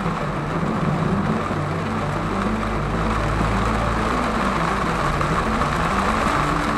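Background music with a low melody line stepping up and down, over a steady rushing noise.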